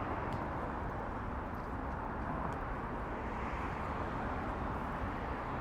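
Steady hum of road traffic, an even wash of noise with a low rumble and no distinct vehicle standing out.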